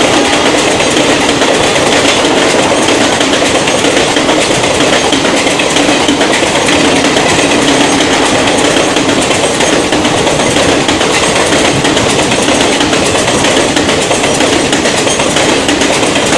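Express passenger train rushing past at about 85 km/h: a steady, loud rush of wheels on rails with clattering over the rail joints.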